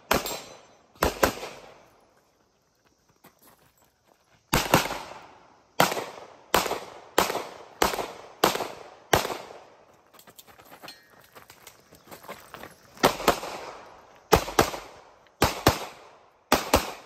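Shots from a TISAS MAC 9 DS 9mm pistol, about a dozen in all, fired in quick pairs and rapid strings. Each shot rings out briefly afterwards. Two pauses of a few seconds break up the strings.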